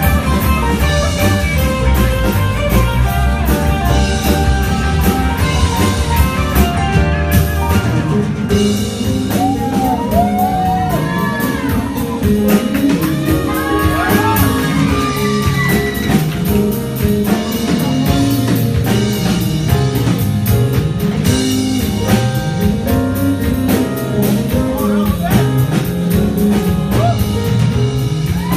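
Live rock band of piano, electric guitar, electric bass and drum kit playing a fast instrumental arrangement. About eight seconds in, the heavy held low chords give way to a moving bass line under a lead line with bending notes.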